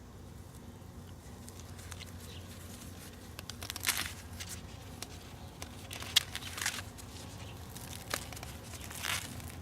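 Sweet corn plants being handled: several short rustling and tearing sounds of leaves and husks as ears are pulled from the stalks, the sharpest about six seconds in.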